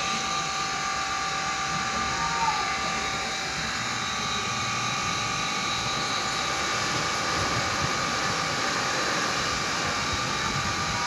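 Steady rushing noise of a thunderstorm, wind and weather noise without a distinct thunderclap, with a few faint steady tones running through it.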